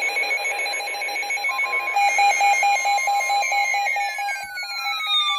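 Emergency Alert System electronic tones: rapidly pulsing beeps, joined about two seconds in by a louder steady tone, with a falling pitch sweep near the end.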